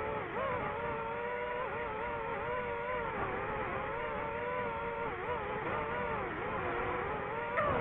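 DJI FPV drone's four motors and propellers whining, the pitch wavering up and down as the throttle changes, with a quick rise at the very end.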